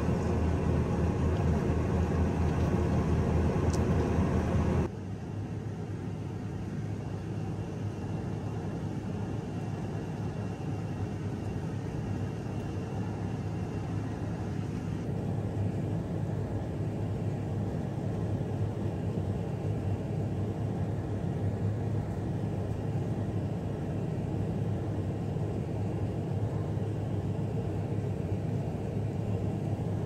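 Tractor engine running steadily, heard from inside the cab. About five seconds in it cuts to a quieter, steady low hum of the tractor and small square baler working.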